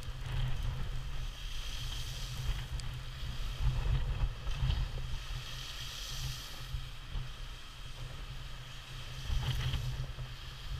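Wind buffeting the microphone in an uneven low rumble, over the hiss and wash of rough waves breaking against a seawall and spraying over it.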